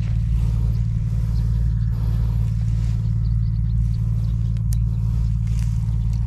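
An engine running steadily: a low, even hum with a fast regular beat and no change in speed.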